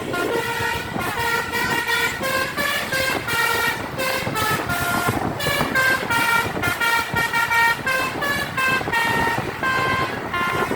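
Roof-mounted Basuri telolet horn on a tour bus playing a quick tune: a fast run of short, loud horn notes jumping between pitches, several notes a second, over the low rumble of the bus.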